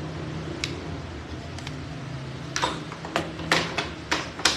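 Steady low room hum with sharp, light clicks and knocks: one or two early, then a quick irregular run of about eight from a little past halfway.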